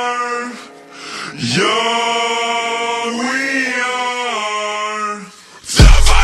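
An unaccompanied singing voice holds long, chant-like notes in two phrases, the second dipping and rising in pitch. Near the end a hip-hop beat with deep bass and drums crashes in loudly.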